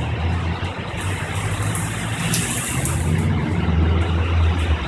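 Thunderstorm: heavy rain hissing steadily, over a low rumble that swells and eases.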